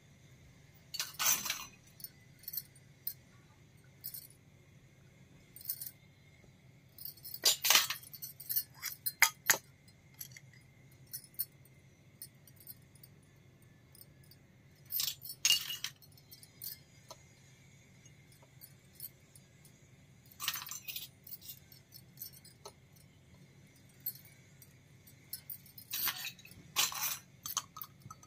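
Miniature stainless-steel toy cookware (small pots, tumblers and bowls) clinking together and being set down. The light metallic clinks come in short scattered clusters every few seconds.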